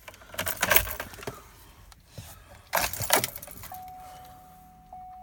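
Car keys jangling and clicking as they are handled at the ignition of a 2013 Cadillac Escalade, then a steady electronic warning tone from the dashboard sounds for the last second and a half: the ice-on-road warning.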